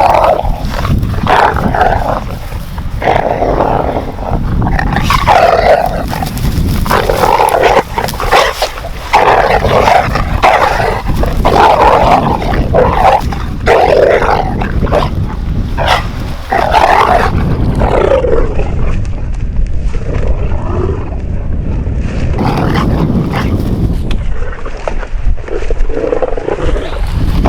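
Two dogs, one of them a pit bull, play-fighting, growling in irregular bursts.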